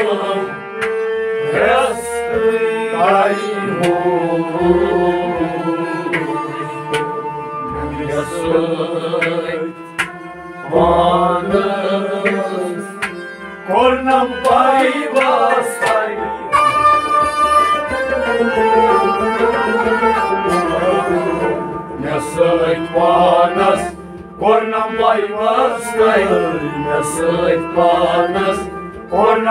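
A man singing a Kashmiri Sufi kalam (devotional poem), accompanied by a bowed sarangi and steady drum strokes.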